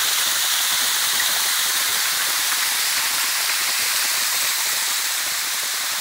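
Waterfall, water cascading down a rock face: a steady rush of falling water, easing slightly near the end.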